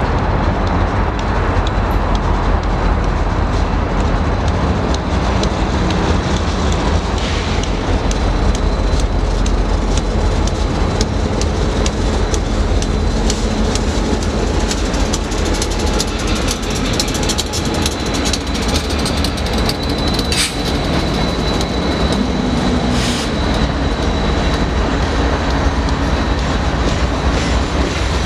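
Diesel-hauled freight train passing close by: the lead EMD GP38-2, an EMD SD70M-2 and a GE C40-9 rumble past, then a long string of tank cars follows with wheels clicking steadily over the rail joints. A faint high wheel squeal runs through the later part.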